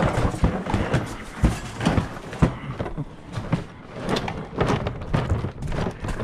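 Footsteps on gravel mixed with irregular knocks and clatters, as carried tools and gear bump about while walking.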